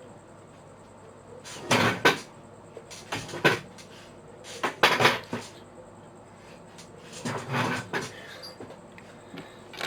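Plastic pieces of a 5x5 speed cube clacking and rattling as they are handled and pulled apart, in four short bursts a second or two apart.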